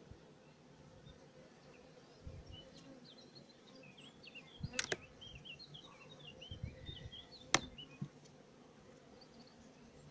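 Honeybees buzzing in a low, steady hum over an open hive, with two sharp clicks about five and seven and a half seconds in.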